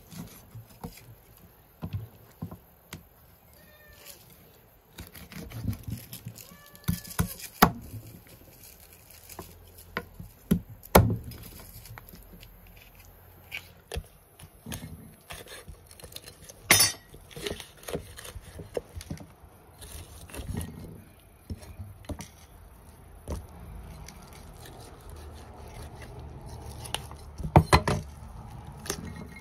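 A large kitchen knife cutting up a raw chicken on a wooden chopping block: irregular sharp knocks of the blade on the wood, a few of them loud, with quieter slicing and handling of the meat between.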